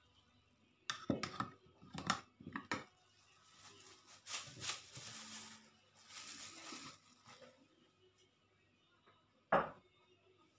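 Kitchenware handling at a table: a quick run of sharp knocks and clatter about a second in, softer rustling in the middle, and one louder knock near the end.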